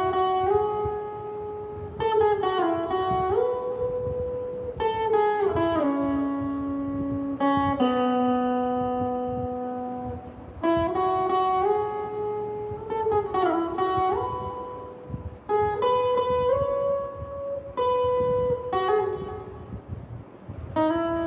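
Stratocaster-style electric guitar playing a slow single-note melody. Long held notes are joined by slides and bends, in phrases that restart every two to three seconds.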